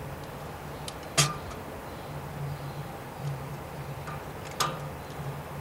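Hand roller being worked over freshly laid sound-dampening layers on a pipe to press out bubbles: a few sharp clicks, the loudest about a second in and again near the end, over a steady low hum.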